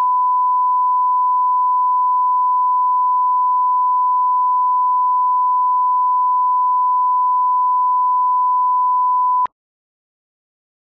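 A 1 kHz test tone, the line-up tone that goes with SMPTE colour bars: one steady, unwavering pitch that cuts off abruptly about nine and a half seconds in.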